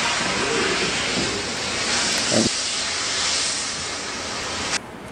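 Steam-locomotive sound effect from a model railroad layout: a steady hiss of escaping steam that cuts off suddenly near the end, with one brief thump about halfway through.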